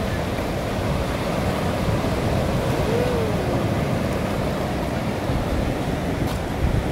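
Ocean surf washing in at high tide, a steady rush of waves on the shore.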